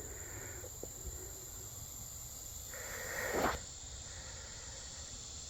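Insects trilling steadily in the background, a continuous high-pitched drone, with a brief rushing noise that swells and stops about three and a half seconds in.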